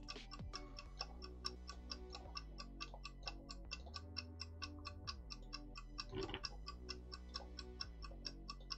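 Faint steady ticking, about five ticks a second, over low tones that slide up and down in a pattern repeating every two to three seconds.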